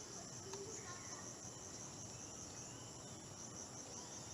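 Steady, high-pitched insect trilling in the background, with a faint even hiss underneath.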